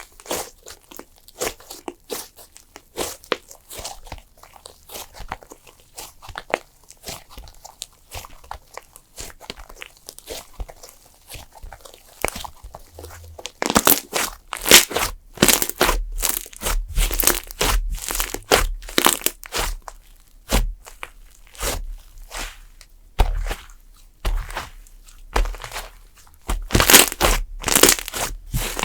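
Clay slime being squeezed and pressed by hand, with a rapid run of crackling clicks and pops. Soft for the first half, much louder from about halfway through.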